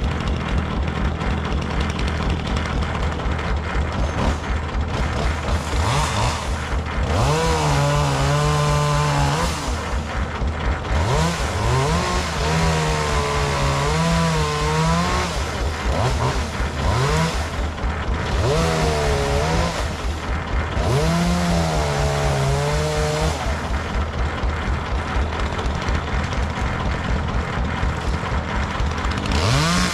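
Two-stroke chainsaw running, its engine note rising and wavering in several spells over a steady low running drone, as it is revved and worked through wood.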